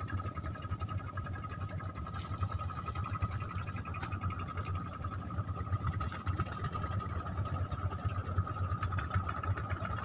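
Spinning reel being cranked steadily to retrieve line: a continuous mechanical whir with a high gear whine, with a brief hiss about two seconds in.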